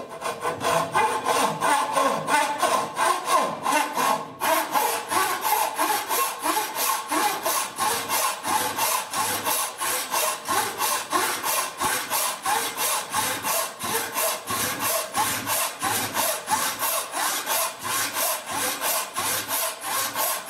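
Chinese frame saw cutting down the end grain of a hard elm workpiece to form a tenon, in quick, even strokes of about three a second, with a short break about four seconds in.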